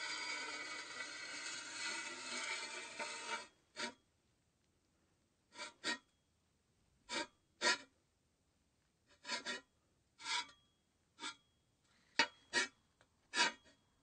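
"Fuel rod insert" sound effect: a long rasping, scraping slide that cuts off abruptly about three and a half seconds in, followed by about a dozen short, sharp sounds at irregular intervals.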